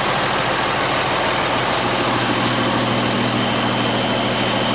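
Semi truck's diesel engine running hard while its drive wheels spin on soft, freshly plowed ground, a steady dense noise throughout; a thin high whine comes in about halfway.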